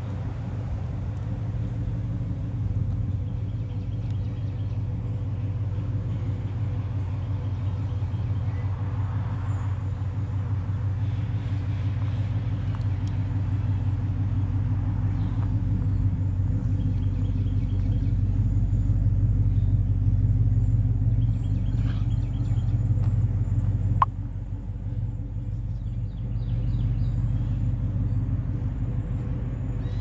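Steady low rumble, with faint high chirps now and then and a single sharp click about 24 seconds in.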